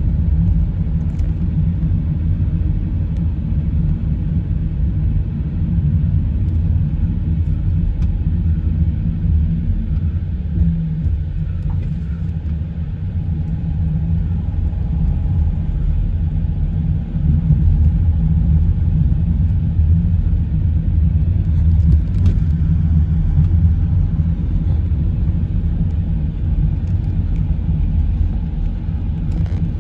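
Car being driven, heard from inside the cabin: a steady low rumble of engine and tyres on the road, a little louder in the second half.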